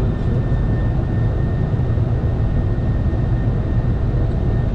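Steady rumble of airflow and engines inside the cockpit of a Boeing 747-400 freighter in flight on approach, with most of the sound low and even.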